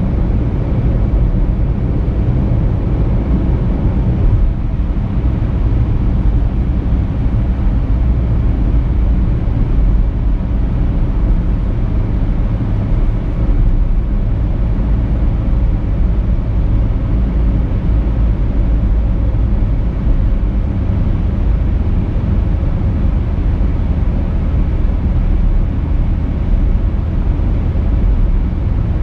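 A car cruising on an expressway: steady, deep rumble of tyres on the road and engine, even and unbroken throughout.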